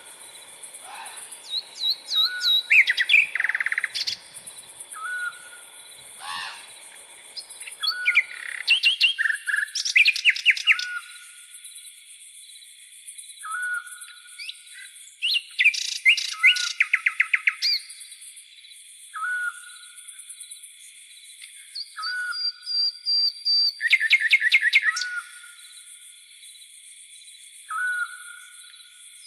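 Several birds calling over a steady high-pitched insect drone: one bird repeats the same short call every two to three seconds, while others give rapid trills and a few held whistles.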